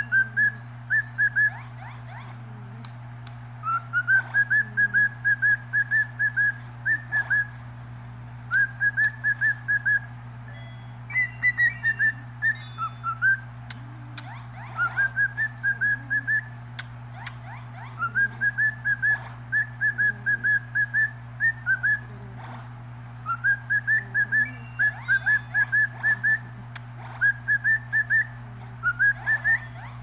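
Cockatiel whistling: repeated phrases of short whistled notes, about three a second, each phrase starting lower and rising to a steady pitch, with short pauses between phrases.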